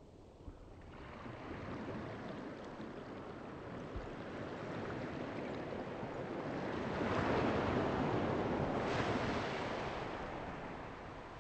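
Rushing wind-and-water noise on open water. It rises out of quiet about a second in, swells to its loudest in the middle, then eases off.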